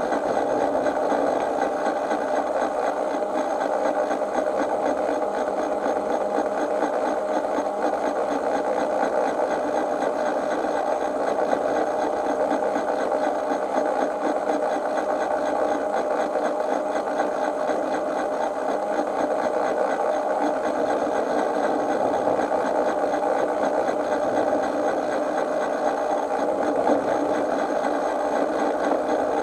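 Steady mechanical whirr of a garden-railway train's drive and wheels running along the track, heard from the camera riding on the train, unchanging throughout.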